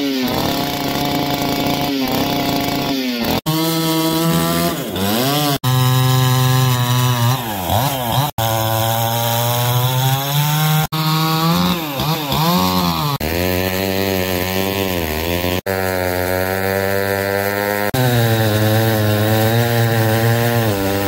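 Two-stroke chainsaws revving and cutting wood, the engine pitch sagging and climbing again under load. The sound comes as about eight short clips spliced together, each change abrupt.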